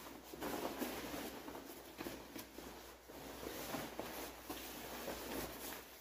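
Faint rustling of fabric as a heavy work jacket is pulled on over insulated overalls.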